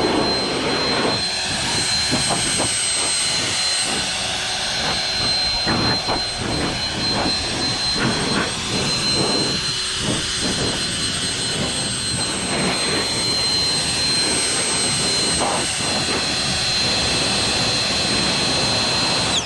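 Leaf blower running steadily, a high whine over rushing air, blowing water off a freshly washed lawn mower. It is switched off right at the end, its whine falling away as it spins down.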